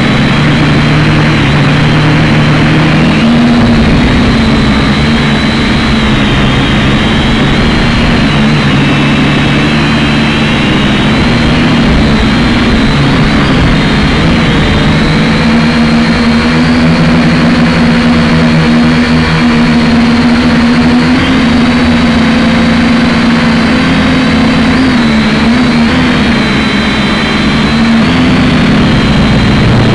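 Syma X5C quadcopter's brushed motors and propellers buzzing loudly, as picked up by its onboard camera. The pitch wavers up and down several times as the drone manoeuvres.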